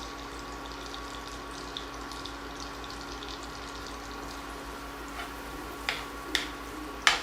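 Chopped onion sizzling steadily in oil and butter in a frying pan, with small crackles. A few sharp clicks come near the end.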